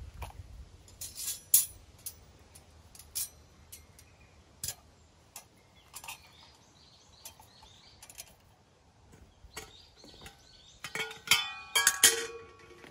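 Camp stove gear being handled: scattered clicks and taps as a gas burner is fitted to a butane canister and a wire grill stand is set over it. Near the end a stainless kettle is set down on the metal grill, with a burst of ringing metallic clanks.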